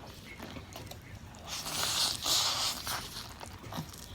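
Ramen noodles being slurped: two noisy slurps in a row, starting about a second and a half in and lasting about a second and a half together.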